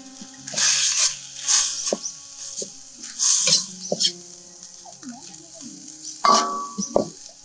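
Stir-frying in a metal wok: a metal ladle scrapes and tosses minced fish, bell peppers and mushrooms in several strokes over a sizzle of frying. About six seconds in there is a louder clank of metal on the wok.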